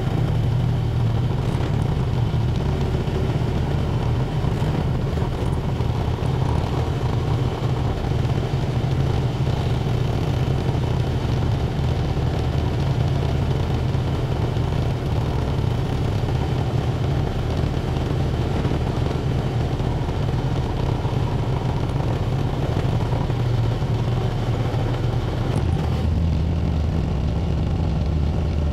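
Tractor engine running steadily while under way plowing snow, heard close from its hood. The engine note shifts a little near the end.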